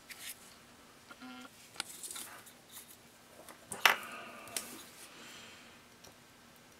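Light handling sounds of a soldering iron and a small circuit board being moved into place: a few scattered taps and clicks, the sharpest about four seconds in.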